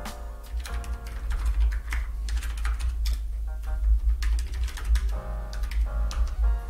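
Typing on a computer keyboard: irregular runs of keystrokes, over background music.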